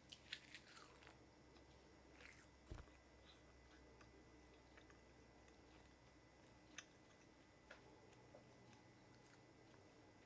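Faint crisp crackles of a child biting and chewing a piece of grilled laver (roasted seaweed), most of them in the first second, then a few scattered faint clicks over near silence.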